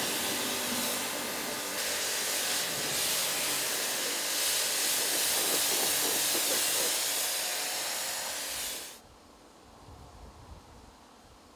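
Pressure-washer jet rinsing snow foam off a car's lower bodywork and sill: a loud, steady hiss of spray striking wet paint and the ground. It cuts off suddenly about nine seconds in, leaving only faint low sound.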